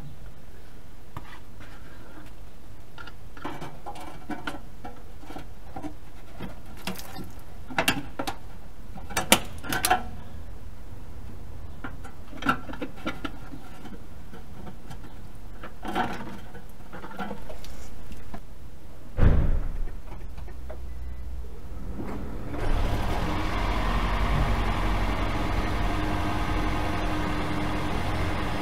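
Scattered clicks and knocks and a single heavy thump, then near the end the Toyota Prius NHW20's 1.5-litre four-cylinder petrol engine comes on and runs steadily. It exhausts through a rear muffler pipe whose burnt-through hole has just been sealed with fire-resistant paste and bandage.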